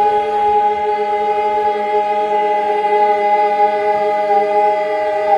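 A choir holding one long sung chord, steady without a break.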